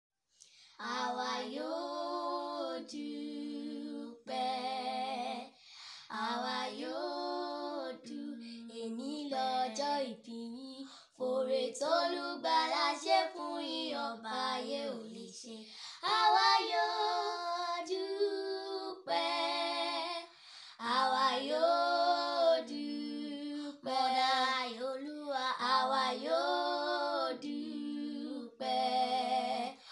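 Two young girls singing a birthday song unaccompanied, in sung phrases separated by short breaths, with no instruments heard.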